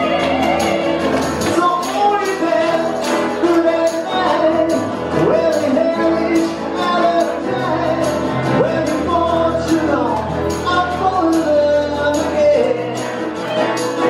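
Live dance song from a small band: singing voices over acoustic guitar, with a steady percussion beat.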